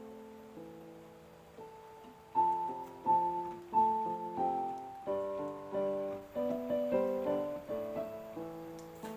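Background piano music: quiet held chords, then from about two seconds in a livelier run of struck notes and chords.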